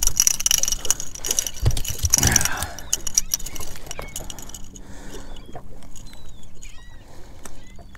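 A speckled trout is swung aboard a fishing boat and handled, with rattling and clicking from the fish, line and tackle and a single heavy thump just before two seconds in. Quieter clicks and handling noise follow.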